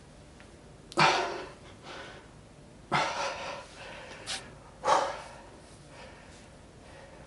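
A man breathing out hard, catching his breath after a set of dumbbell presses: three loud exhalations about two seconds apart.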